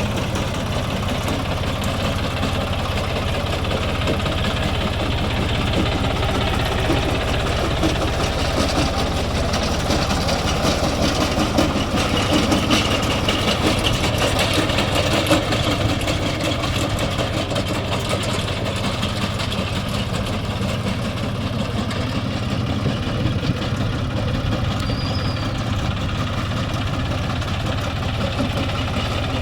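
Tractor engine running steadily while driving a paddy straw baler, the engine's low drone mixed with the baler's mechanical noise.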